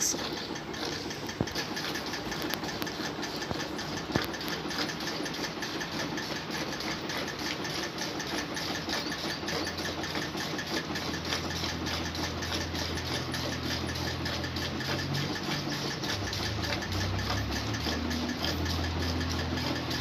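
A cow being milked by hand: quick alternating squirts of milk hitting a steel pail that is part full of milk, in a fast, even rhythm. A low hum comes in underneath about halfway through.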